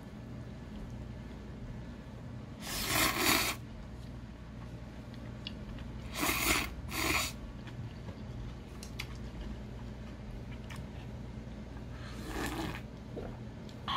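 A person eating cold ramen noodles: four short noisy bursts of slurping, a few seconds apart, over a low steady hum.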